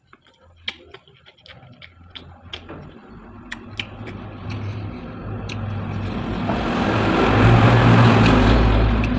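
A motor vehicle passing close by: a low engine hum and the noise of its tyres grow steadily louder to a peak about eight seconds in, then begin to fade. Light clicks and taps sound during the first few seconds.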